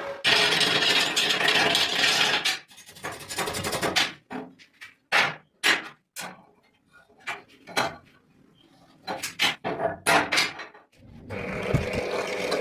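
Metalworking tool noise: a harsh steady hiss for the first couple of seconds, then a run of short, irregular scraping strokes with quiet gaps between them. The steady hiss starts again near the end.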